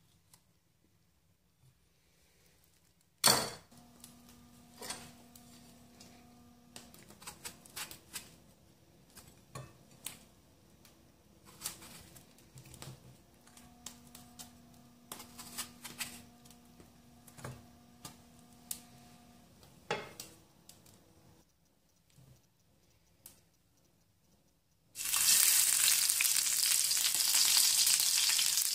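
Light scattered clicks and taps as tomatoes are cut with a knife and the pieces dropped into a glass bowl. Then, near the end, hot oil in a frying pan breaks suddenly into a loud, steady sizzle as tomato pieces go in.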